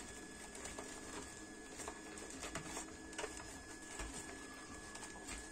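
Faint clicks, taps and rustles of hands handling the cardboard and plastic packaging of a boxed model car.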